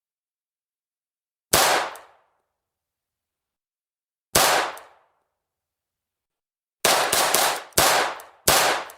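Walther P22 .22 LR semi-automatic pistol firing, heard close up: two single shots a few seconds apart, then a quick run of several shots near the end, each with a short ringing tail.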